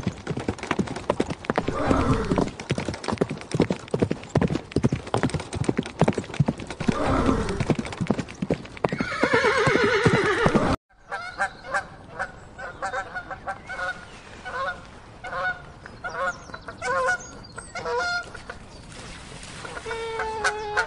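A foal neighing three times over a fast clatter of hooves, the last neigh longer and higher. After an abrupt cut about halfway, pelicans give many short honking calls.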